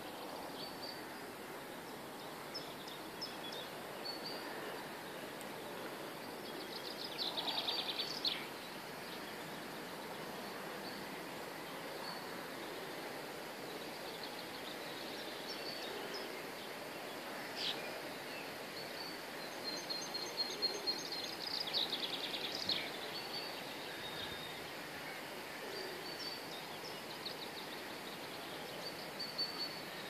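Songbirds singing in short, high phrases over steady outdoor background noise; the loudest parts are a rapid trill about seven seconds in and a run of quick phrases around twenty to twenty-three seconds in.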